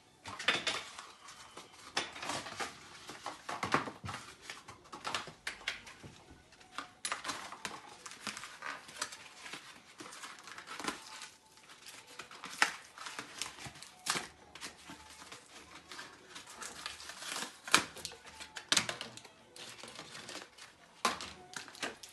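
Stunt scooter being assembled by hand: the metal handlebar worked into its clamp with irregular clicks, knocks and scrapes.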